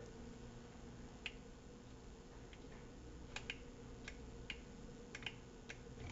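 Faint plastic clicks, about ten at uneven intervals, as the cup of an Elite personal blender is pressed and twisted on its motor base. The motor does not start: the cup is not yet engaging the base. A faint steady hum runs underneath.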